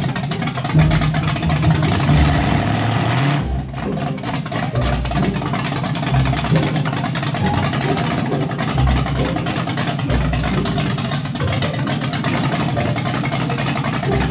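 540 cubic-inch big-block Chevy V8 running loud through open headers with no exhaust system or mufflers. Its low note swells and fades every second or two.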